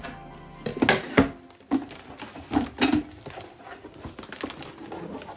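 A gift box being cut open with scissors and its cardboard and plastic packaging handled: a handful of sharp snips and crackles in the first three seconds, then quieter rustling.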